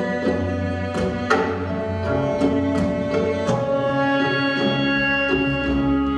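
Instrumental dance accompaniment music: held pitched notes layered over one another, broken by several sharp percussive strikes.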